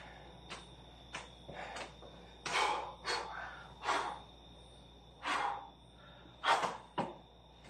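Heavy, gasping breaths of a man exerting himself through Navy SEAL burpees, about eight hard exhales in a few seconds, with a few short sharp taps in between. A faint steady high tone runs underneath.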